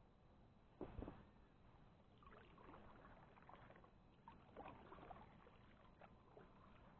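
Faint kayak paddling: a knock and splash about a second in, then scattered splashing and dripping water as the paddle works.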